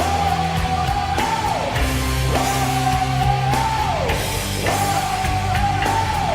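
Heavy rock song playing loud and steady. A high held note slides down in pitch about every two seconds, over a steady low bass.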